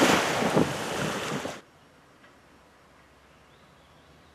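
Wind buffeting the microphone over open sea, gusty and loud, cutting off abruptly about a second and a half in and leaving near silence.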